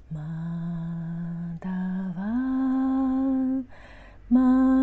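A woman's unaccompanied voice sings slow, long-held notes of a devotional bhajan. The pitch steps and glides upward from note to note, and she takes an audible breath about four seconds in before the next note.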